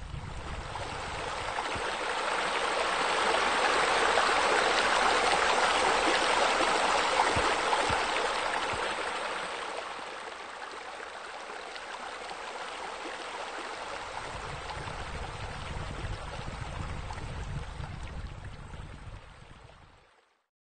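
Steady rush of running water. It swells over the first few seconds, eases off about ten seconds in with a low rumble underneath, and cuts off just before the end.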